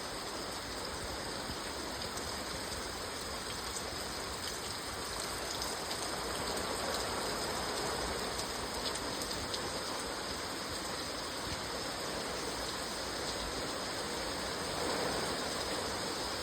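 Steady rain falling, an even hiss with fine scattered drop ticks.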